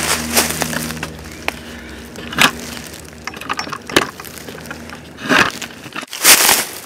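Footsteps crunching through dry fallen leaves, with small twigs cracking underfoot, at an uneven pace of roughly one step every second or so. The sound drops out briefly near the end.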